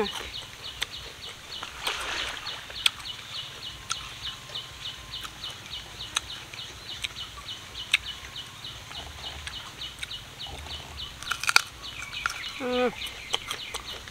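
Crisp crunching and chewing of raw green mango, with sharp bites now and then. A high chirp repeats evenly, about five times a second, in the background, and a chicken calls once near the end.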